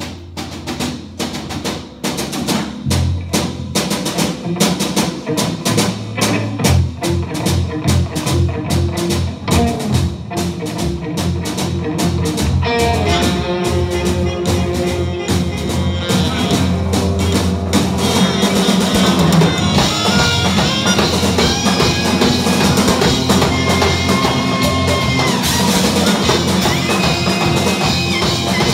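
Live band playing an instrumental: drums and percussion drive a busy rhythm over bass and electric guitar, and held saxophone notes come in about twelve seconds in as the music builds louder.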